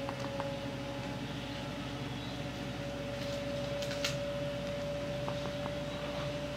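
Steady machine hum with a constant mid-pitched tone, broken only by a few faint light taps and a brief scrape about four seconds in.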